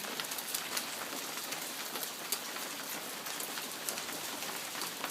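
Hail falling and striking hard surfaces: a steady hiss of impacts with many sharp ticks of individual hailstones hitting.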